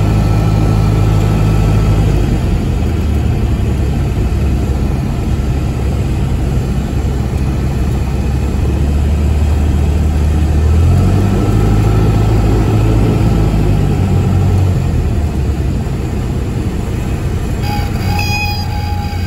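Cessna 172SP's four-cylinder Lycoming IO-360 engine and propeller droning steadily at landing-approach power, heard inside the cockpit, its tone shifting about two seconds in and again around eleven seconds in. Music comes in near the end.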